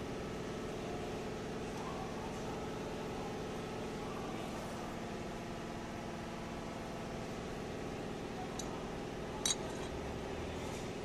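Steady machine hum made of several even tones, with a single sharp metallic clink about nine and a half seconds in as metal water pump parts are handled.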